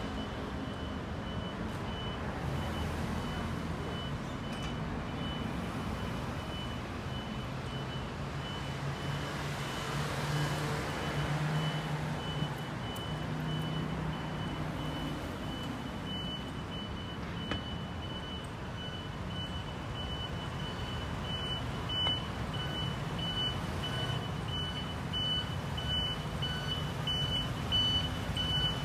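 City street traffic: cars, motor scooters and a truck idling and passing. Over it an electronic warning beeper repeats one high beep at an even rate, growing louder near the end.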